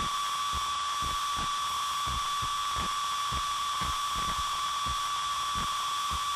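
A steady, high-pitched electronic tone held over a background hiss, with soft, uneven low thuds about two or three times a second, like several people's footsteps on a studio floor.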